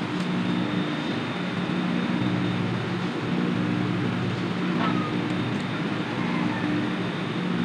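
Sewing machine running as it stitches cloth, its motor hum starting and stopping in spurts over a steady mechanical whirr.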